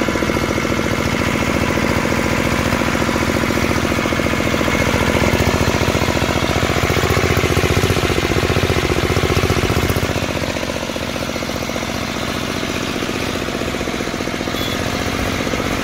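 Field Marshal 5 hp single-cylinder diesel engine on a water-pump set, running steadily with an even, rapid chugging beat. It gets slightly quieter about ten seconds in.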